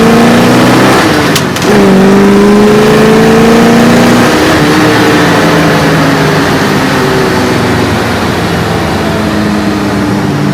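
1965 Ford Galaxie's engine accelerating through the gears. The revs rise, drop with an upshift about a second and a half in, and rise again, then ease off and hold steadier. It is getting a little too much fuel.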